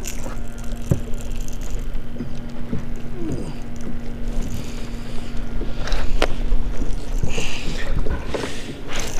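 Water lapping against a fishing kayak's hull, with wind rumble on the microphone and a faint steady hum. A few sharp knocks and short splashes come in the second half as a small hooked blue catfish is brought up alongside.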